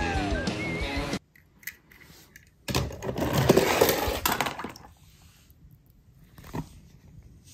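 A die-cast toy car rattles and clatters down a plastic spiral ramp for about two seconds, followed by a few faint clicks. For the first second, a film soundtrack with music and gliding tones plays and then cuts off suddenly.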